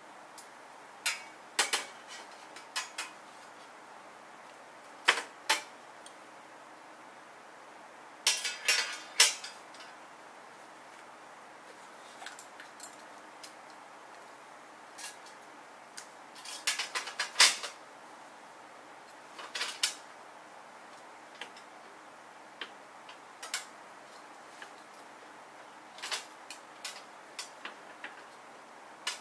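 Metal clinks and clacks as a stainless-steel insert plate and burner unit are set into a Snow Peak IGT Slim table's metal frame. The knocks come in short irregular clusters, the loudest a little past halfway.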